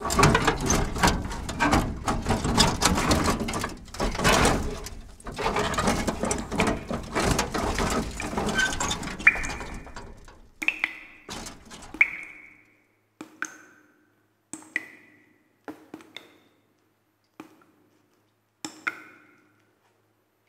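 Slideshow soundtrack: a dense, noisy passage for about the first ten seconds, then sparse single struck percussion notes, each ringing briefly and dying away.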